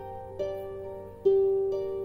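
Harp played by hand in a slow improvised melody: a few single plucked notes, each ringing on and fading before the next.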